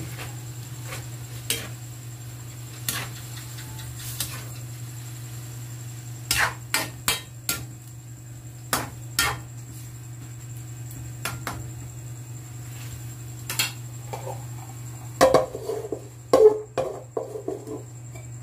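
A metal spatula knocking and scraping against an aluminium wok as a banana-heart and coconut-milk dish is stirred, in scattered single clinks. About three-quarters of the way through, a louder clatter as an aluminium lid is set down on the pan. A steady low hum runs underneath.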